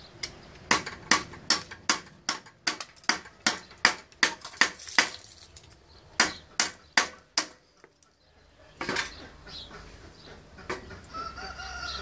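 Hand-made D2 steel cleaver chopping into the edge of an upright wooden stake: a quick run of a dozen or so sharp chops, about two or three a second, a short pause, then four more.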